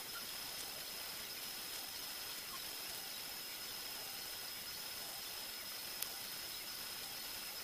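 Steady hiss with a faint, constant high-pitched whine, and a single short click about six seconds in.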